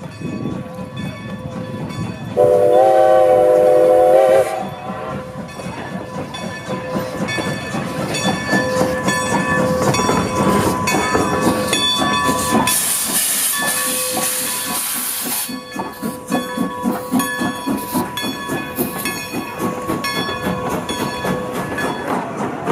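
Steam locomotive No. 90 of the Strasburg Rail Road giving one whistle blast of about two seconds with several notes sounding together, then working with steady exhaust beats. A loud burst of steam hiss lasts about three seconds just past the middle.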